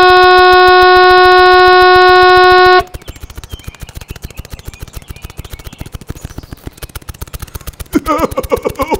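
A loud, steady truck air horn blast on one pitch, cutting off about three seconds in, over a rapid, even mechanical clatter that continues after it. A voice exclaims near the end.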